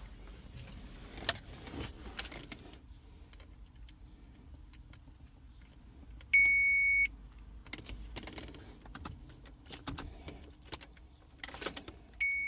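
Two loud, steady electronic beeps of under a second each, one about six seconds in and one near the end, with small clicks and rattles like keys or tools being handled in between.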